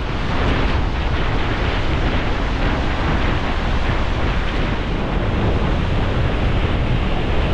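Strong wind buffeting the microphone in wild, wet weather: a loud, steady rush with a heavy low rumble underneath.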